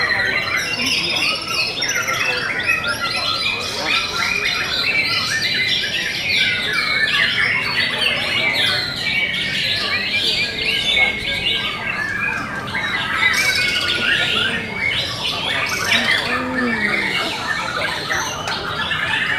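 White-rumped shamas singing, several at once: a dense, unbroken mix of whistles, trills and chattering calls.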